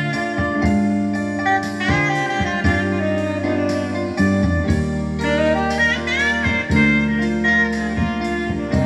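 Instrumental blues-jazz recording with a steady beat, a held bass line and a lead line that bends its notes about six seconds in. It is played back through 1954 Philips 12-inch open-baffle speakers driven by a Holimar 401 amplifier.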